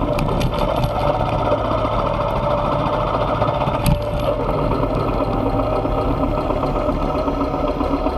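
Motorcycle engine running steadily while riding, with a single sharp click about four seconds in.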